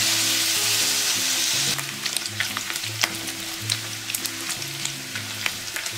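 Bacon strips frying in a nonstick pan over medium-low heat and turned with a silicone spatula. A dense, steady sizzle gives way about two seconds in to quieter crackling and popping as the bacon browns.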